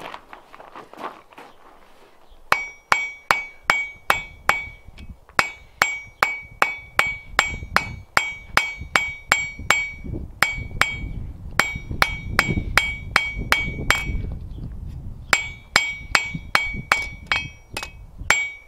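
Blacksmith's hand hammer striking a hot tapered steel bar on an anvil, starting about two and a half seconds in. The blows come about three a second in runs with short pauses, each with a clear ring from the anvil. The smith is knocking the corners off the square taper to round it again.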